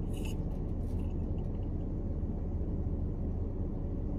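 Steady low rumble inside a parked car's cabin, with a short slurp through a drinking straw right at the start.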